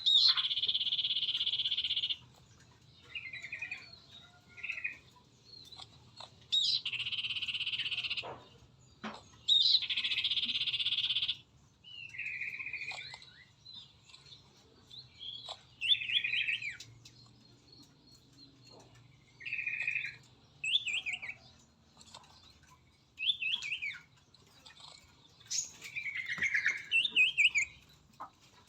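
Small birds calling: three long, harsh buzzy calls of about one and a half seconds each in the first half, then shorter chirps and quick trilled notes, with a burst of rapid notes near the end.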